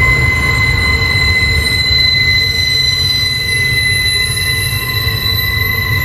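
Train wheel flanges squealing as the train rounds a tight curve: a steady, loud, high-pitched squeal over the low rumble of the passing cars.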